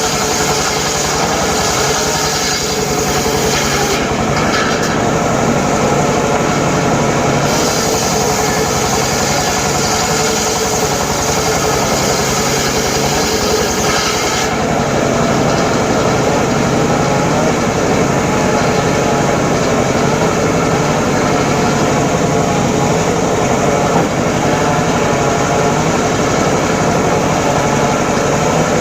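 Homemade circular saw rig running steadily while ripping teak timber, a constant mechanical drone with a higher hiss that drops away twice.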